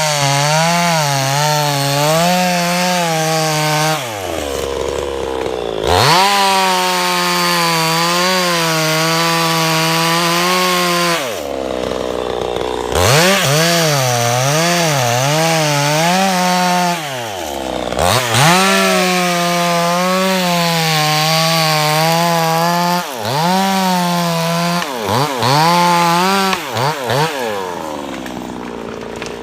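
Chainsaw engine running at high revs, its pitch wavering as it cuts through wood. It drops back to idle three times between cuts and winds down near the end.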